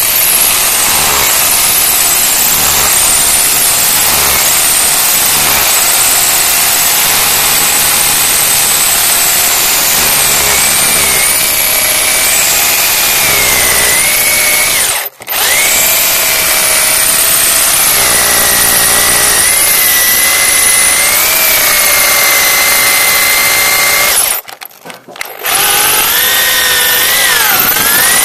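Power drill running under load, boring a 400 mm bit down into a concrete footing. The motor whine wavers in pitch, and the drill stops briefly near the middle and again for about a second near the end.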